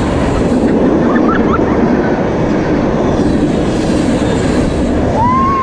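Freight train passing close by: a loud, steady rumble of wheels on rail. Near the end comes a brief high tone that rises and falls.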